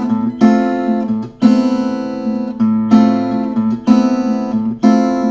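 Steel-string acoustic guitar playing an A minor add 9 chord again and again, a fresh attack about once a second with each chord ringing on. The notes blend together into one uniform sound.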